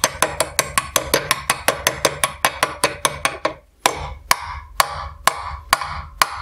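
Hammer tapping a bearing into a snowmobile suspension cheek clamped in a vise, with quick light taps about six or seven a second. The bearing is a tight fit. The taps stop about three and a half seconds in, and slower, even ringing knocks follow, about two a second.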